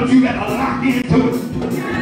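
Live gospel music: a man's voice singing through a microphone over keyboard, with a steady beat.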